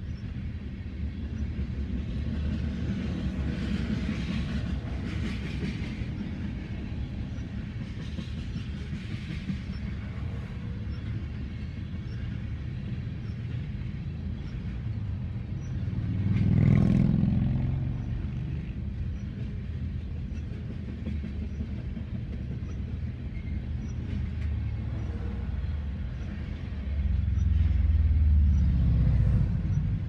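Freight train of tank cars rolling past with a steady low rumble and wheel clatter. A motorcycle passes close by about halfway through, briefly loudest, and a deeper rumble swells near the end.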